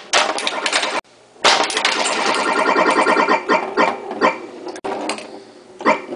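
Bally Voltan Escapes Cosmic Doom pinball machine sounding off: a busy run of electronic tones mixed with mechanical clicks and clatter, with a brief pause about a second in.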